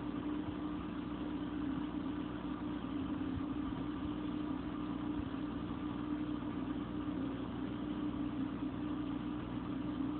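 Steady hum of an aquarium pump: a low drone with a fainter, higher tone above it.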